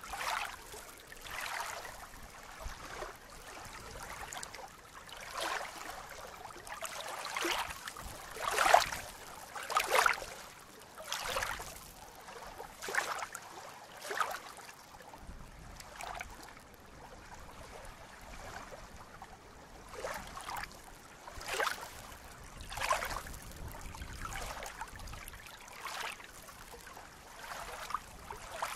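Small lake waves lapping, with irregular soft splashes every second or two.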